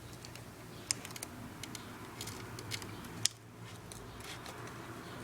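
Scattered light clicks and taps from plastic laptop parts and a keyboard being handled, the sharpest about a second in and again near three seconds, over a faint steady low hum.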